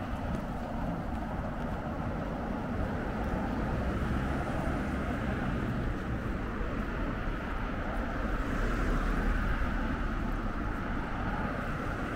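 Steady city traffic rumble, swelling briefly about eight seconds in.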